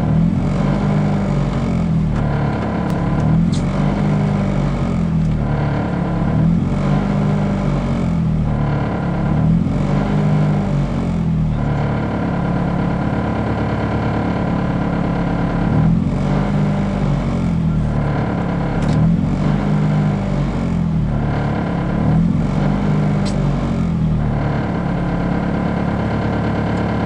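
Honda Civic rally car's engine running while the car stands still, heard from inside the cabin. Its speed rises and falls in a regular cycle about every one and a half seconds, steadying for a few seconds around the middle before the cycle resumes.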